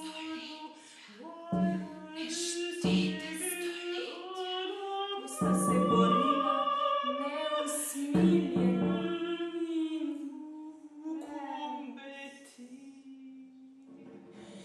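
Mezzo-soprano singing a French text in a contemporary classical piece for voice and flute. The voice holds and bends long notes, with several sharp accents at the starts of phrases.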